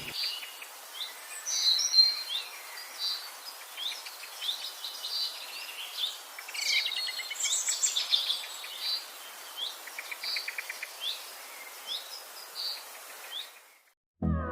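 Several wild birds chirping and calling, with short repeated notes and a few quick trills, over a faint outdoor hiss. The birdsong cuts out shortly before the end.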